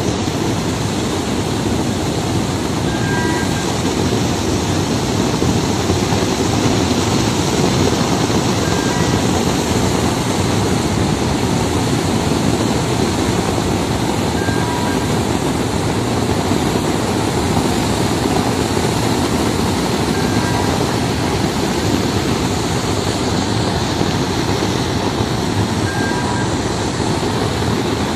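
Shiploader loading iron ore: ore pouring down the chute into a bulk carrier's hold, with the loader's machinery running, making a loud, steady rush of noise. A short beep repeats about every six seconds.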